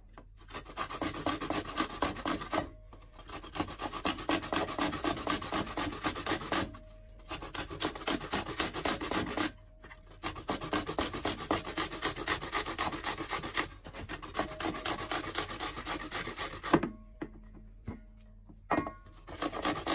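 An apple being grated on a stainless steel box grater over a steel bowl: quick rasping strokes in runs of a few seconds, with short pauses between runs and a longer pause near the end.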